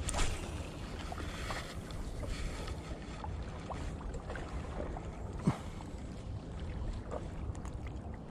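Steady low wind rumble on the microphone over calm water. There is a brief rustle at the start, scattered light ticks, and one sharp knock about five and a half seconds in.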